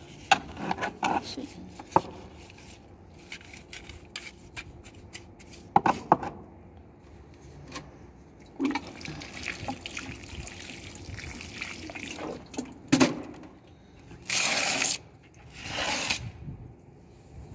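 Small metal hand trowel scraping and clicking in potting soil against a terracotta pot, then, near the end, two short loud bursts of splashing water.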